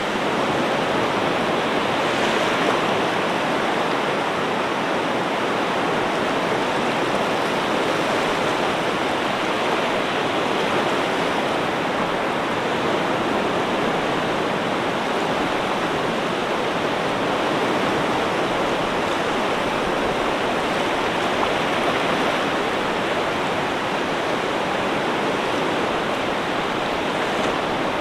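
Ocean surf giving a steady, unbroken rush of water, with no separate wave breaks rising and falling.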